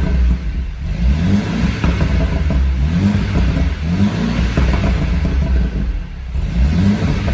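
Mercedes-Benz W205 C200 coupe's engine blipped repeatedly, the revs rising and falling every second or so, with exhaust pops and crackles on the overrun from a pops-and-bangs tune.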